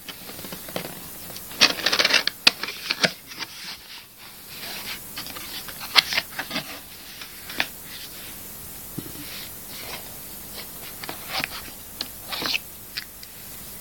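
A phone's retail box and its packaging being opened by hand: irregular rustling and scraping, with many short sharp clicks and taps, busiest about two to three seconds in.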